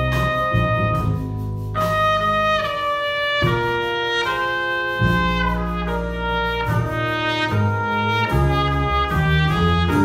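Big band playing a slow ballad, a trumpet soloist carrying the melody in long held notes over the band's saxophones, piano and bass.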